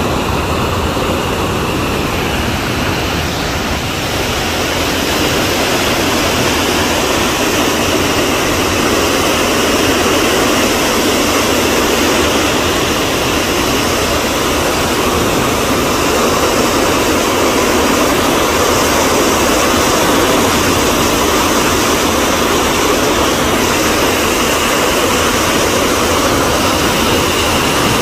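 Waterfall on the Maligne River plunging into a narrow rock gorge: a loud, steady rush of water, growing a little louder about four seconds in.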